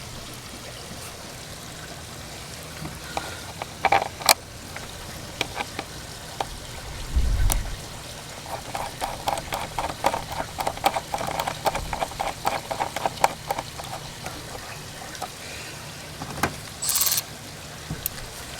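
Hand ratchet clicking in quick runs as a fitting is turned in the engine bay, with scattered clicks and a dull knock of tools and parts being handled. A short rustling burst comes near the end.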